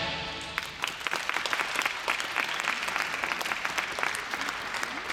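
Audience applauding, the clapping starting about half a second in as the last of the program music fades away.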